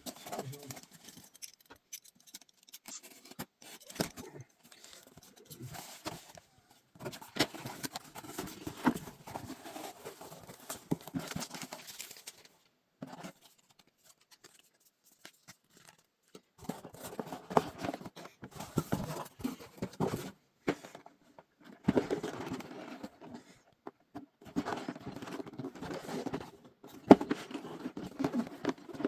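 A LEGO set's box and packaging being handled and opened: rustling, tearing and small clicks in several bursts, with a pause of a few seconds in the middle.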